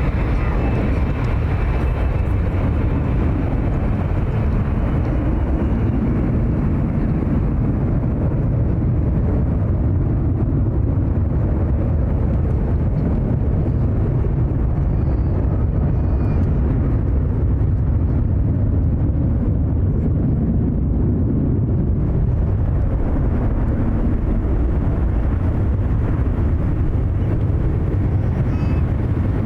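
Boeing 787 Dreamliner's twin turbofan engines: steady, loud jet engine noise, deepest at the bottom, with the higher hiss easing off midway and returning near the end.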